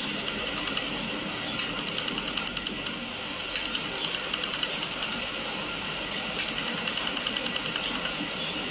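Pulsed spot laser welder firing rapid trains of pulses, about ten sharp ticks a second, in four runs of a second or so each, every run opening with a louder snap, over a steady machine hum.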